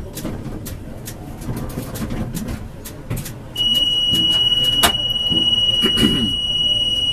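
A steady, high-pitched electronic warning tone from the tram starts about halfway through and holds for about four seconds over low cab rumble, with a couple of sharp clicks while it sounds.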